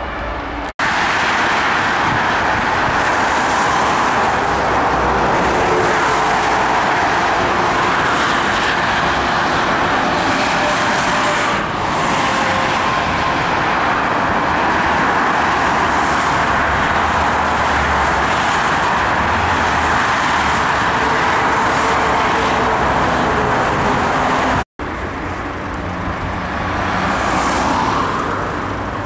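Steady, dense motorway traffic noise of cars and trucks passing, broken by two abrupt cuts. After the second cut it gives way to quieter road ambience.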